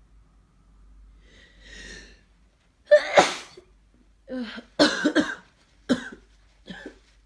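A person with a congested head cold sneezing and coughing: a gasping intake of breath, a forceful sneeze about three seconds in, then a quick run of several coughs.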